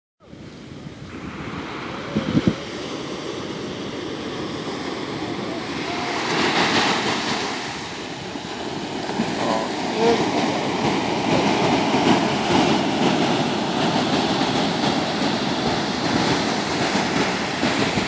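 Ocean surf breaking and washing up a sandy beach, a steady wash of noise that swells about six seconds in. A brief knock about two seconds in.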